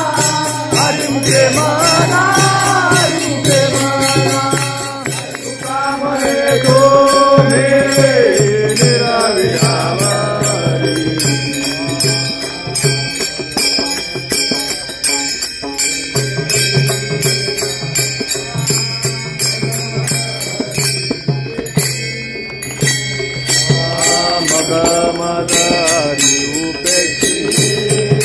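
Group of devotees singing a devotional bhajan together, with small brass hand cymbals (taal) clashed in a steady, rapid rhythm. The singing is strongest at the start and again near the end, while the cymbals keep time throughout.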